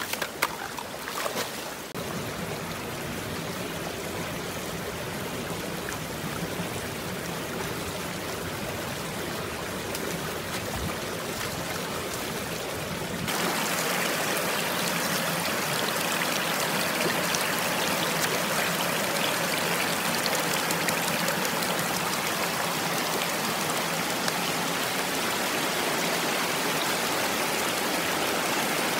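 A rocky stream rushing and splashing over stones, a small waterfall close by. There are a few sharp knocks in the first couple of seconds, and the rush steps up louder about halfway through.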